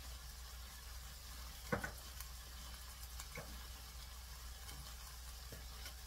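Soybean sprouts and onion sizzling gently in a stainless steel pan over low heat, a steady soft hiss over a low hum. A sharp click about two seconds in, and fainter ticks later, come from the sizzling or the pan.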